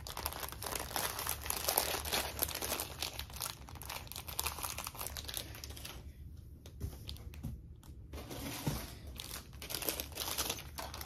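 Thin plastic packaging crinkling and tearing as a small plastic packet is handled and pulled open. The crinkling drops away for about two seconds a little past the middle, then starts again.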